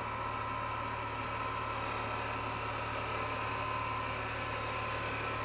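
Wood lathe running steadily with a low hum and a faint whine, while a turning tool cuts into the spinning anacua bowl blank and throws off shavings.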